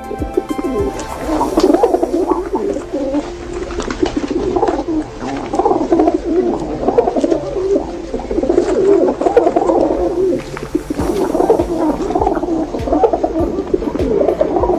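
A flock of birds calling continuously, many low, wavering calls overlapping without a break.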